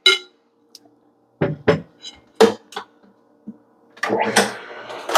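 Knocks and clinks of a glass bowl against a vertical slow juicer as watermelon chunks are tipped into its hopper, over a faint steady hum. About four seconds in, a louder rough noise begins.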